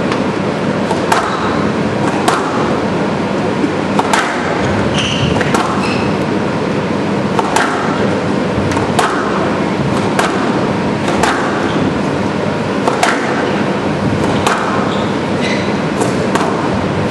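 Squash rally: the ball is struck hard by rackets and cracks off the walls about once a second at an uneven pace, with a few short squeaks of shoes on the wooden court floor, over steady hall noise.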